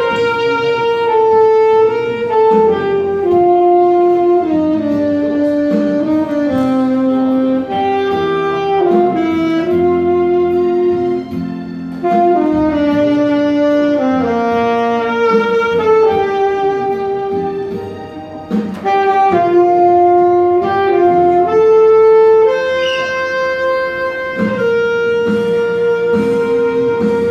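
Saxophone playing a slow ballad melody in legato phrases that step downward, ending on one long held note near the end.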